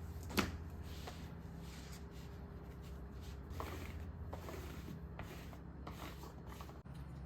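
Soft rubbing and handling noises with a few light clicks, the sharpest about half a second in, over a steady low hum.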